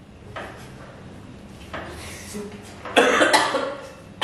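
A person coughs once, loud and sudden, about three seconds in, after a stretch of faint eating sounds from people eating noodles straight from their plates.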